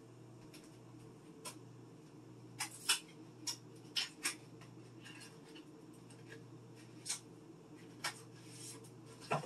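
Scattered light clicks and taps with a little faint rustling, from hands handling a stick of butter and kitchen things before cutting it into pats, over a steady low hum.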